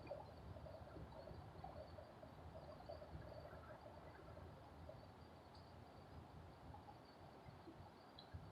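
Near silence: a faint low rumble with scattered soft chirping calls of small animals.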